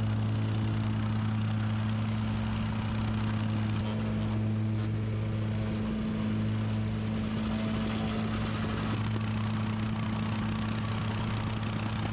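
Engine of heavy construction equipment running steadily at a constant speed.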